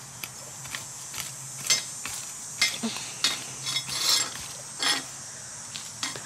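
A small plastic hand rake scraping and scratching through garden soil in short, irregular strokes, about one or two a second.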